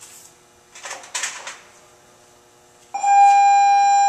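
A brief clatter about a second in, like tools being handled, then a loud, steady high beep-like tone that starts abruptly near the end and holds.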